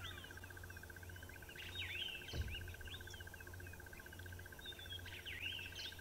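Dawn chorus of small birds: short bursts of quick chirps and whistles, a little after the start and again near the end, over a continuous fast, even trill at one pitch and a low steady hum.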